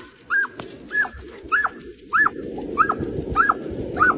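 A dog giving short, high yips, about eight in a row, one every half second or so, each rising then falling in pitch: excited yelping as it sets off on a run on its leash. A low rushing noise builds from about halfway through.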